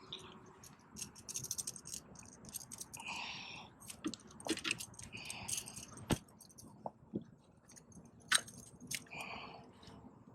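Handling noise as a freshly landed puppy drum and tackle are handled on the kayak: scattered clicks, knocks and short rustles, with sharper knocks about six seconds in and a little past eight seconds.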